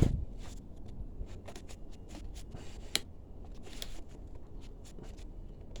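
Light handling noise of small plastic parts: faint clicks and rustles as reusable cable ties are worked off a dirt bike's frame, with one sharper click about three seconds in.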